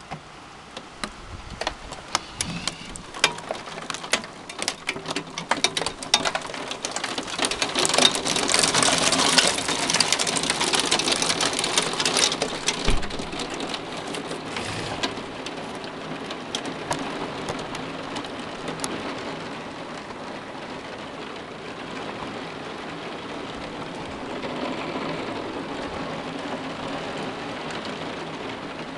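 Hailstones pelting down: scattered sharp hits at first that build within a few seconds into a dense, loud clatter, strongest about eight to twelve seconds in, then easing into a steadier patter. A single low thump comes about thirteen seconds in.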